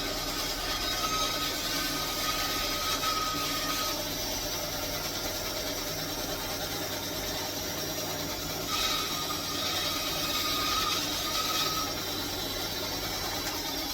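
Bandsaw running steadily while cutting wood. A whine and cutting hiss come in for about the first four seconds and again from about nine to eleven and a half seconds in, as the piece is fed into the blade.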